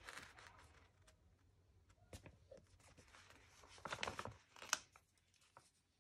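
Faint rustling and crackling of a plastic-backed sticker sheet being handled and stickers peeled off it, with a cluster of louder crackles about four seconds in.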